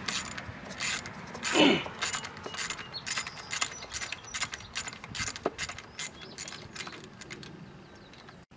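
Small socket ratchet clicking in short irregular runs, a few clicks a second, as a 10 mm engine-cover bolt is backed out. There is one louder, brief sweeping sound about a second and a half in, and the clicks thin out near the end.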